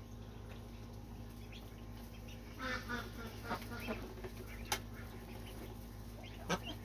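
Domestic duck and ducklings calling softly in a duck house: a short quack about two and a half seconds in and a few quieter calls, with two sharp taps later on, over a low steady hum.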